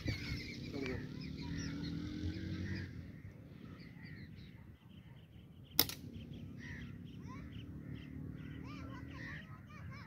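Many small birds chirping and twittering in a tree, with a low steady hum underneath. About six seconds in comes a single sharp snap: a slingshot shot.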